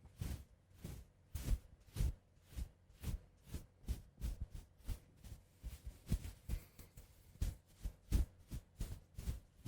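Soft, close-miked ASMR strokes against the microphone, repeating evenly at about two a second, each with a light low thump under a brushy hiss.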